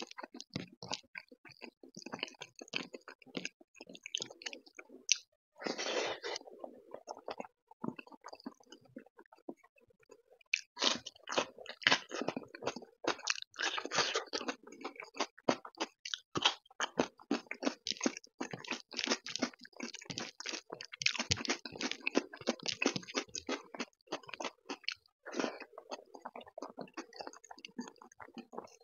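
Close-miked chewing of a mouthful of dal and rice mixed with crispy fried shoestring potato, the crisp potato crunching between the teeth in uneven bursts, quieter for a few seconds and denser in the second half.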